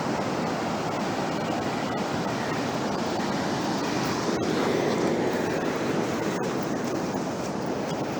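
Surf breaking on a beach: a steady rushing wash that swells a little about halfway through.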